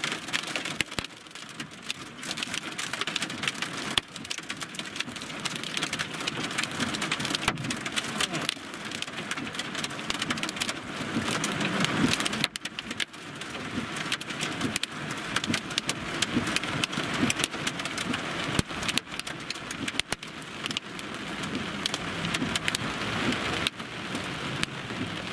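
Heavy rain pelting the windshield and roof of a moving car, heard from inside the cabin as a dense patter of ticking drops over the tyre and road rumble.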